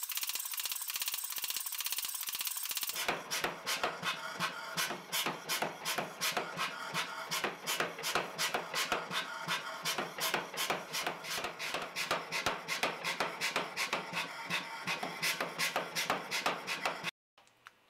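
Hot pattern-welded steel billet being hammered on an anvil, a fast steady run of sharp strikes several times a second. The strikes grow fuller and louder about three seconds in, and stop abruptly near the end.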